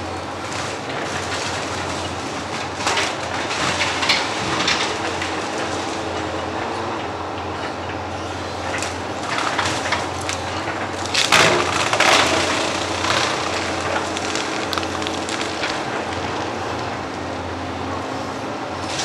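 A heavy construction machine's diesel engine running steadily, with irregular scraping and clattering bursts, the loudest about eleven to twelve seconds in.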